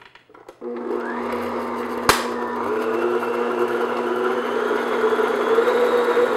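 Electric stand mixer starting up about half a second in and running steadily at medium-high speed, its motor rising briefly to speed as the paddle beats butter and sugar in a glass bowl. A single sharp click about two seconds in.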